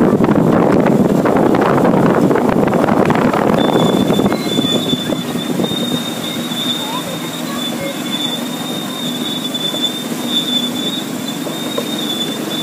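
Miniature railway train running along its narrow-gauge track, heard from aboard: a loud rushing rumble for the first four seconds or so. Then a steady high-pitched squeal sets in as the wheels run around a curve.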